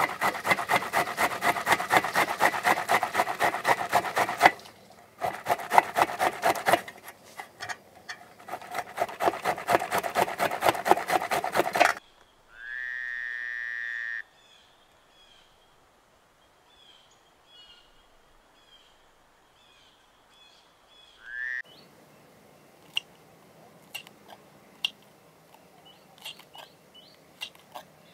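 Tomatoes rubbed against a steel hand grater in quick rasping strokes, about four to five a second, with a short break about four and a half seconds in; the grating stops about twelve seconds in. A bird then gives one long call and small birds chirp faintly. Near the end a knife makes a few light clicks slicing green chillies.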